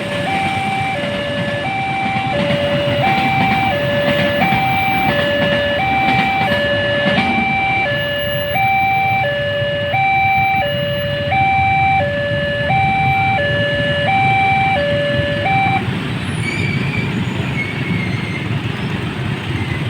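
Railway level-crossing warning siren sounding a two-tone electronic alarm, alternating high and low about every 0.7 s, warning that a train is approaching; it stops about 16 seconds in. A steady low rumble runs beneath it.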